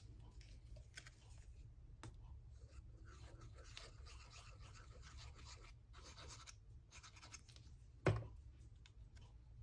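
Paper craft pieces and ribbon being handled, with soft scratchy rustling as liquid glue is squeezed onto a paper die-cut, and a few small clicks. A single short knock about eight seconds in.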